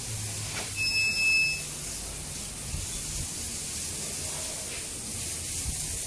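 A single steady, high-pitched electronic beep lasting under a second, about a second in, over a steady hiss.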